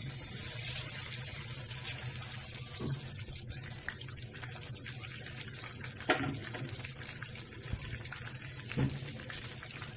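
Ginger-garlic paste sizzling steadily in hot oil in a non-stick kadai, with a couple of brief knocks of a wooden spatula against the pan, about six seconds in and again near the end.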